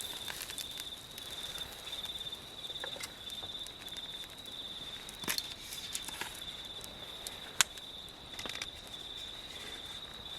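Insects chirping in a steady, pulsing high trill, with a few scattered faint clicks and one sharp click about seven and a half seconds in.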